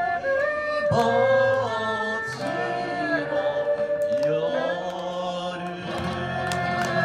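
Live acoustic music: guitars playing under a held, gliding melody line.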